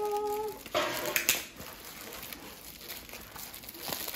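Clear plastic bag crinkling and rustling as a small wooden toy is pulled out of it by hand, loudest about a second in, then softer rustling with a brief flurry near the end.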